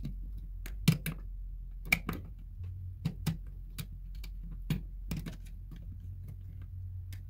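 Irregular small clicks and taps of a wire being worked and wiggled loose from an old electrical receptacle's terminal. The clicks are thickest in the first few seconds and thin out later.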